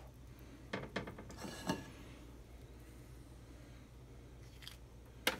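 Small metal spoons scraping and clinking against each other and a metal cookie sheet as soft cookie dough is dropped onto it. A few short scrapes come in the first two seconds, then a sharp clink near the end.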